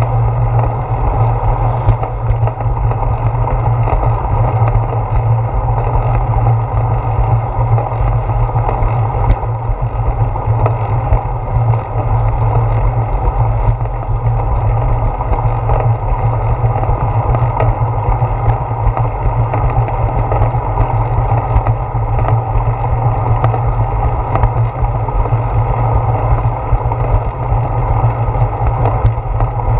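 Steady low rumble of wind and road vibration on a handlebar-mounted GoPro Hero 4 while a bicycle rolls along a concrete path.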